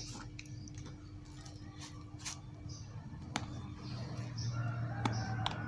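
Faint scattered clicks and taps over a low steady hum.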